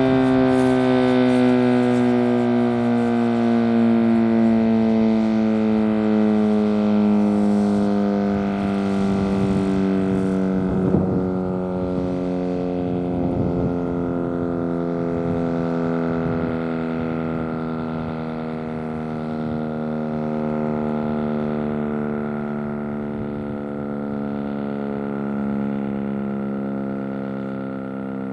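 Darley P-940 electromechanical siren winding down at the end of a short alert test cycle, its pitch falling slowly and steadily as the rotor coasts down.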